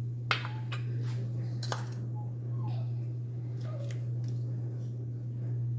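A metal serving spoon clinks and clicks against a grill pan and a ceramic plate as food is dished up: a sharp click about a third of a second in, another near two seconds in, then a couple of fainter ones. A steady low hum runs underneath.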